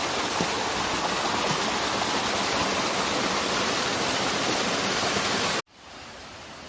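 Heavy rain falling, a loud steady hiss. Near the end it cuts off abruptly and is replaced by a fainter, steady hiss.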